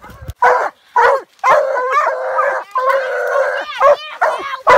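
Walker coonhounds barking treed at the base of a tree: short barks, then two longer drawn-out bawls, then quick barks again. This is the tree bark that tells the hunters a raccoon is up the tree.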